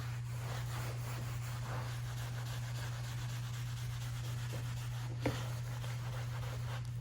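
A rag wiping rigid-core flooring with mineral spirits, a soft rubbing over a steady low hum, lifting marker and polish stains off the surface. A single sharp click about five seconds in.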